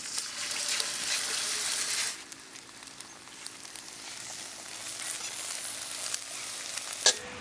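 Food sizzling in hot oil in a pan, louder for the first two seconds and then a softer steady sizzle, with a sharp click near the end.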